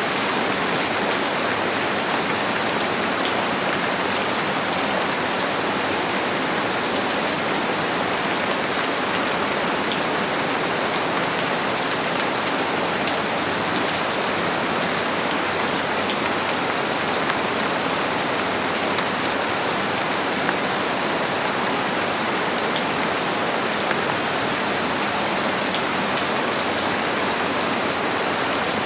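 Steady rain falling on a surface, a dense even hiss with many fine drop ticks and no thunder.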